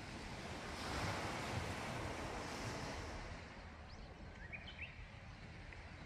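Sea waves surging in and washing over shore rocks. One wave swells about a second in and eases off over the next few seconds, over a low rumble of wind on the microphone.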